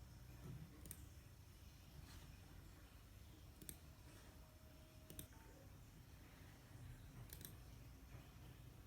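Near silence broken by four faint, sharp clicks spaced a second or two apart.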